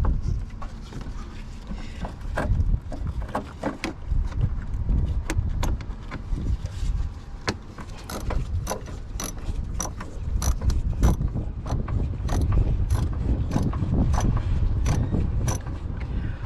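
Hand-tool work on the van: irregular clicks and knocks that settle into a regular click about twice a second in the second half, over a low rumble.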